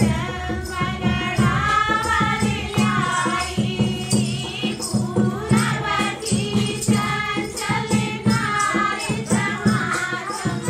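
Dehati folk dance song (naach geet): voices singing over a steady, fast drum beat, several strokes a second.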